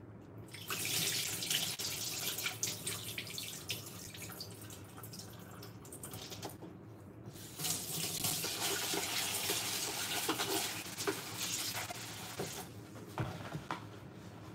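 Kitchen tap running into the sink with water splashing. It turns on about half a second in, drops away briefly around six seconds, runs again and stops a couple of seconds before the end, followed by a few light knocks.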